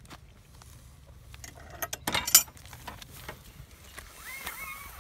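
Metal latch and fittings of a wooden field gate clicking and clanking as it is opened, a quick run of metallic knocks about two seconds in with one loud clank.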